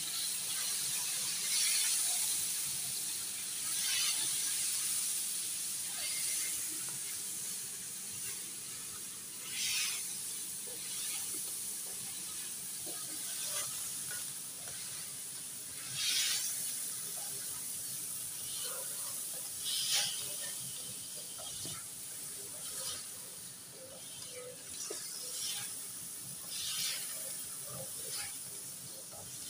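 Diced chicken sizzling in hot ghee in a metal wok, a steady hiss, with a louder scrape of the spatula stirring against the pan every few seconds.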